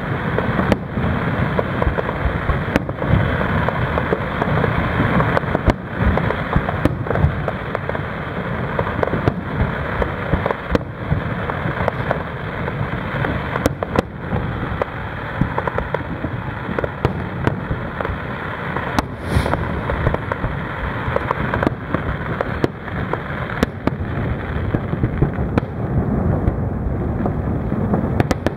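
Aerial fireworks shells bursting in a continuous barrage of booms and crackle, with frequent sharp bangs standing out.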